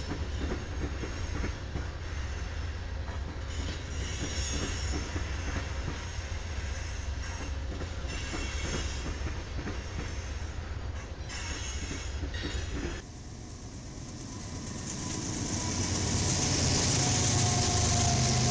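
An Amtrak passenger train passes with a steady low rumble. About thirteen seconds in the sound changes abruptly to a BNSF diesel-led freight train coming close and growing louder, with a strong hiss and a thin steady whine near the end.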